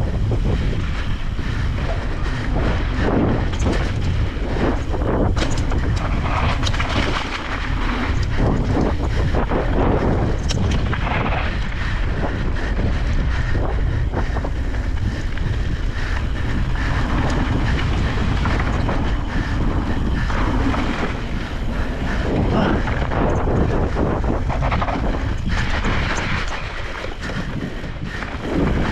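Heavy wind rushing over the microphone of a moving e-bike on a sandy trail, with irregular knocks and rattles from the bike jolting over the rough ground.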